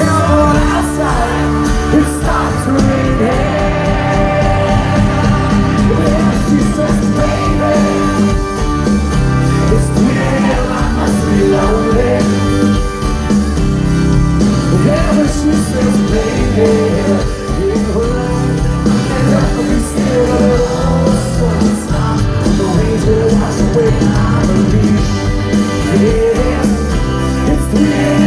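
Live rock band playing a song, a male lead singer over electric bass and acoustic guitar.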